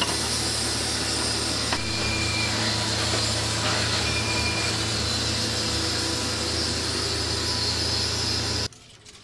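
Steady mechanical noise of a machine running, a low hum under a hiss, cutting off abruptly about a second before the end.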